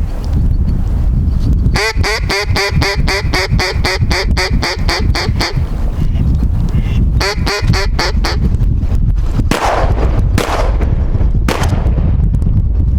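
A fast run of mallard quacks, about five a second, then a shorter run a couple of seconds later, over steady wind rumble on the microphone. Two rushing swells of noise follow near the end.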